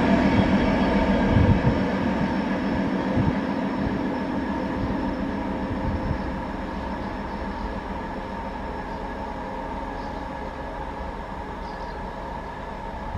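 ČD Class 754 'Goggle' diesel locomotive pulling a passenger train away, its engine drone holding a steady pitch with the rumble of the coaches. The sound fades steadily as the train draws off into the distance.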